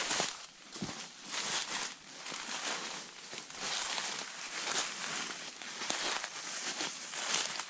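Footsteps crunching and rustling through dry leaves and undergrowth, a swell of crackling with each step.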